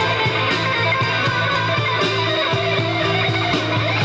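A live rock band playing: a Stratocaster-style electric guitar over bass notes and drums.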